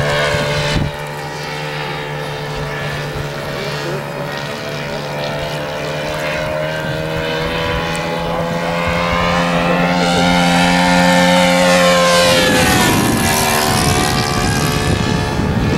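Engine and propeller of a Great Planes Seawind radio-controlled model seaplane running at flying speed. Its pitch rises and then falls about two-thirds of the way through as the model passes.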